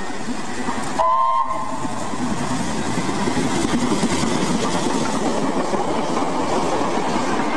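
High-speed train: a short, loud horn blast about a second in, then the rushing roar of the train passing close by, building up from about two seconds in and holding steady.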